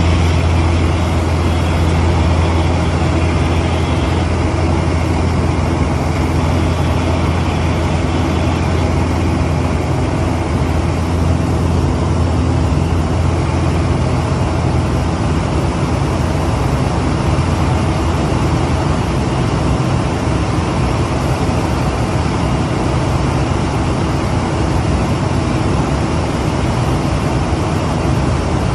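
Cessna 188 agricultural plane's piston engine and propeller running steadily in flight, heard from inside the cockpit: a loud, even drone with a strong low hum.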